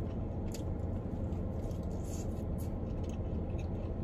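A person biting into and chewing a fried chicken drumstick, with scattered faint, wet mouth clicks. Under it runs a steady low hum from the car's air conditioning.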